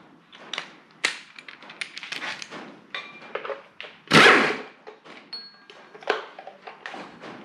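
Hand tools clicking and clinking against metal as bolts are worked loose on a Toyota 1UZ-FE V8's front covers, with a louder clatter about four seconds in.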